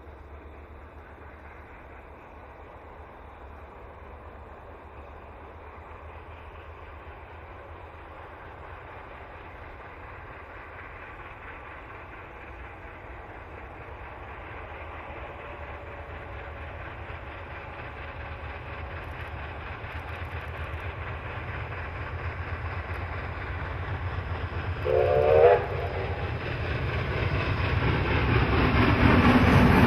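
New South Wales C32 class steam locomotive 3237 working a passenger train, growing steadily louder as it approaches. A short blast on its steam whistle sounds near the end.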